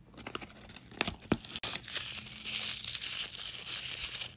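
Packaging crinkling and rustling as a small advent-calendar box is opened and its contents unwrapped, after a couple of light clicks about a second in.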